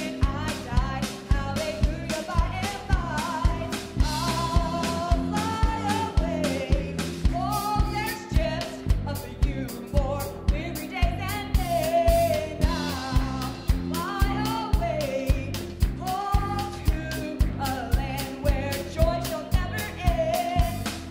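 Live worship band playing a gospel song: a woman singing the lead over electric bass, a drum kit keeping a steady beat of about two hits a second, piano and a hand drum.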